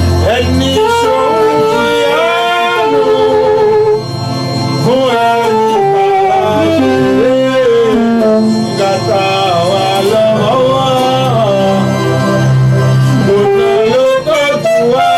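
Band music: a gliding melodic lead line over sustained bass notes, running without a break.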